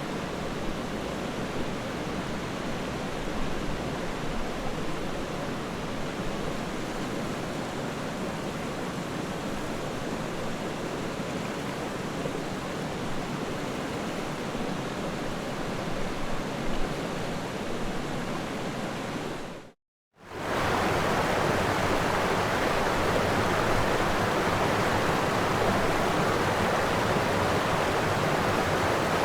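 Floodwater rushing in a steady hiss. About two-thirds of the way through it breaks off for a moment, then returns louder.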